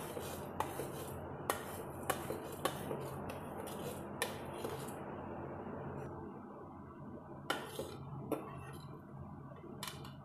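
Steel spoon clinking against a plate and a pressure cooker as whole spices are scraped and tipped into the cooker: scattered sharp clinks, several in the first five seconds and a few more later, over a steady hum.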